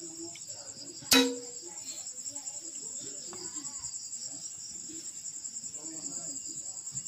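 Crickets chirring steadily in a high, finely pulsing drone, with a single sharp knock about a second in.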